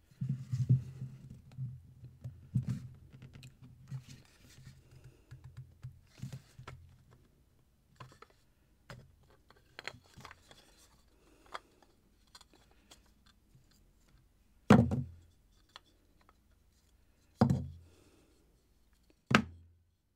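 Grey 3D-printed plastic injection-mold blocks handled and pried apart on a desk: scattered clicks, taps and rubbing, then three sharp knocks near the end, about two seconds apart, as the mold pieces come apart and hit the tabletop.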